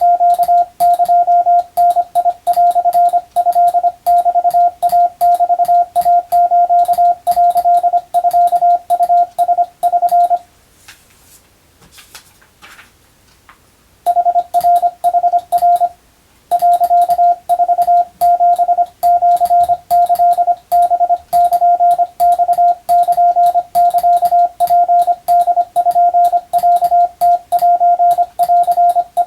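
Hand-sent Morse code (CW) heard as a single steady beep tone keyed on and off in dots and dashes, sending Japanese Wabun telegram practice text. Sending stops for about three and a half seconds around ten seconds in, and briefly again a few seconds later.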